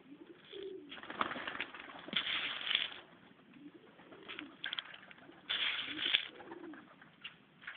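Serbian highflyer pigeons cooing: several low coos that rise and fall in pitch, with louder bursts of rustling noise about a second in and again around five and a half seconds.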